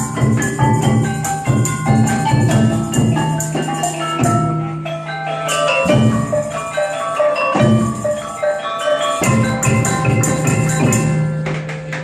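Music with a steady beat: short, bright pitched notes over a low held bass, with sharp jingling percussion strokes, broken by brief pauses a few times.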